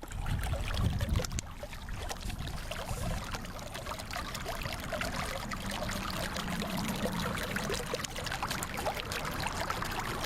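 Water from a leaking underground pipe bubbling up out of the ground, a steady splashing, gurgling flow.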